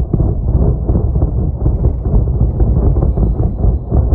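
Loud, continuous low rumbling of distant shelling and explosions, swelling and fading constantly.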